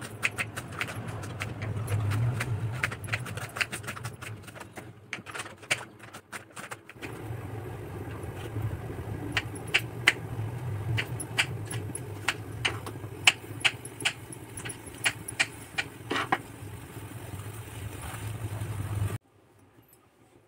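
Kitchen knife chopping onion and tomato on a wooden cutting board: irregular sharp taps over a steady low hum. The sound cuts off abruptly about a second before the end.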